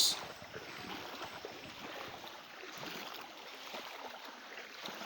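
Steady rush and slosh of moving floodwater in a river being waded through on foot.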